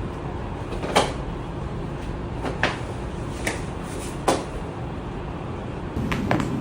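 Joint cracks during a chiropractic adjustment: about seven short, sharp pops spread over several seconds, two of them close together in a quick pair, over a steady background hiss.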